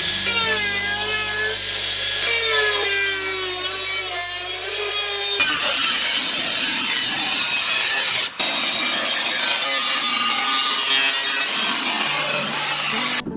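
Handheld angle grinder with a thin cut-off disc cutting through the thin sheet steel of a metal can, its whine wavering in pitch as the disc bites. The sound changes abruptly about five seconds in and cuts off suddenly near the end.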